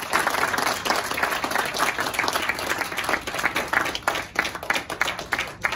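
A roomful of people applauding: dense hand clapping that thins into fewer, separate claps near the end.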